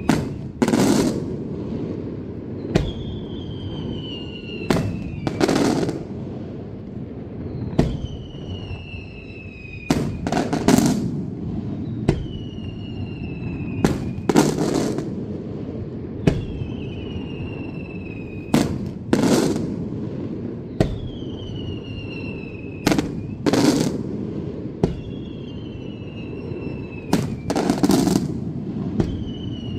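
Daylight fireworks shells bursting into coloured smoke: loud sharp bangs every two seconds or so, several echoing. A whistle falling in pitch over about two seconds comes between them, roughly every four seconds.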